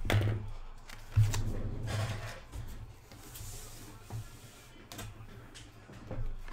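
Handling noise from trading cards and card boxes being moved on a table: a thump about a second in, then rustling and a few light clicks.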